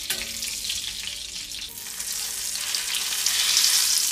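Beef köfte sizzling in hot butter in a stainless steel frying pan, with a click of metal tongs against the pan at the start. About three seconds in the sizzle swells as the hot butter is poured over the köfte on the plate.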